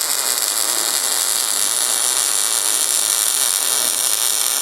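MIG welding arc burning steadily through one continuous bead: a loud, even hiss with a fine crackle.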